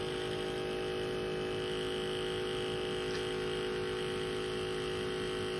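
Handheld percussion massage gun running at a steady speed, a constant buzzing hum, with its head pressed against a Moluccan cockatoo's beak.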